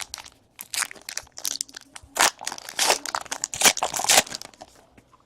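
Plastic trading-card packaging crinkling and rustling in irregular bursts as baseball card packs and cards are handled.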